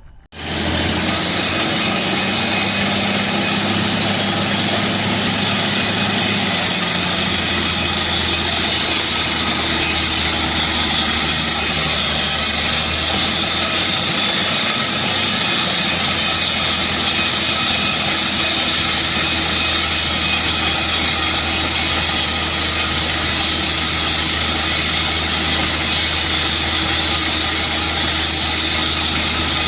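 Truck-mounted water well drilling rig's machinery running loud and steady, cutting in suddenly; its low hum shifts about six and a half seconds in.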